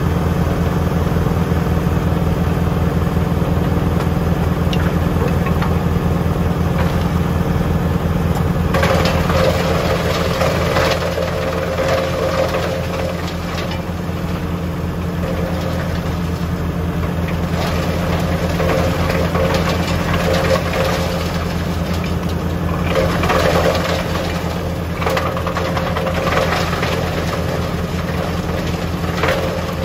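Tractor-driven Junkkari HJ500 wood chipper running with a steady engine hum. From about nine seconds in, bursts of louder, rougher noise come and go every few seconds as wood goes through the chipper.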